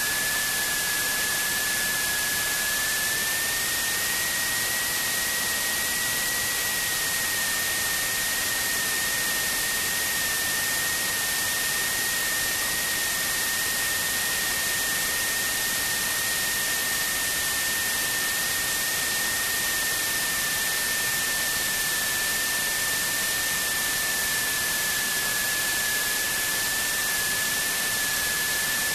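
Steady rushing hiss inside a Symphony light aircraft's cabin on approach, with a single high-pitched whine that rises slightly a few seconds in and then holds.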